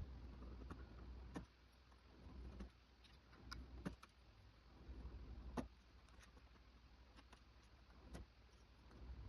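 Faint, scattered clicks and taps of small hard parts being handled, about six of them at uneven intervals, over a low rumble.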